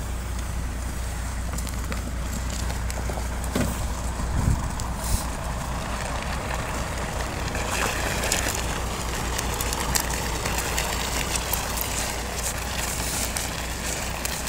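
Wind buffeting a phone microphone on an open snowy road, a steady low rumble with scattered crackles and clicks.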